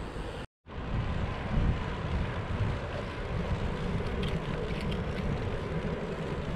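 Wind rushing over the microphone of a handlebar-mounted camera on a road bike riding along an asphalt road, a steady noise heaviest in the lows. The sound cuts out briefly about half a second in.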